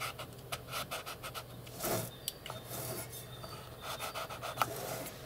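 Faint scraping and rubbing with scattered small clicks: a hand tool working at the centre of a subwoofer speaker cone, by the dust cap.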